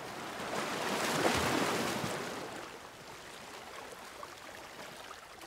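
Ocean surf: one wave of rushing noise swells up and dies away over about three seconds, leaving a fainter steady wash.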